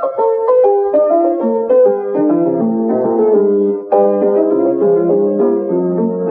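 Piano music: a quick melody of many short notes, with a new phrase starting about four seconds in.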